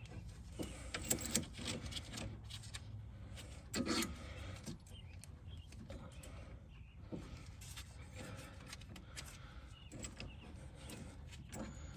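Light metallic clicks and clatter of tools and parts being handled, over a low steady hum, with a louder knock about four seconds in.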